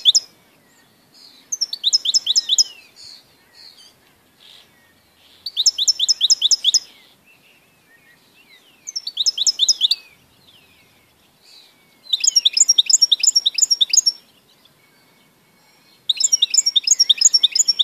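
European goldfinch singing in short phrases of fast, evenly repeated high notes. There are about six phrases, each one and a half to two seconds long, with pauses of a couple of seconds between them; the last two are longer and fuller.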